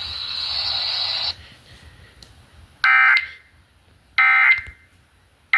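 Emergency Alert System end-of-message signal: short bursts of SAME digital data tones, a warbling electronic screech, about 1.3 seconds apart, coming after a second of radio hiss. It marks the end of the warning broadcast.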